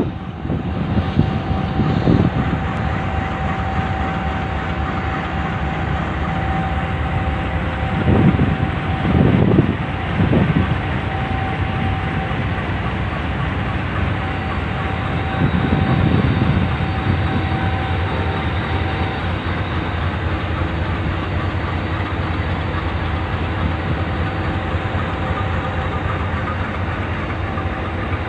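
AGE-30 diesel-electric locomotive idling steadily, a constant low hum with a fixed whine above it. Wind buffets the microphone a few times, around a third and again about halfway through.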